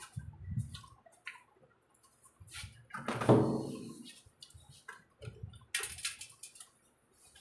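Wet chewing and mouth sounds of people eating biryani and curry, with short clicks and smacks. One louder knock-like sound comes about three seconds in.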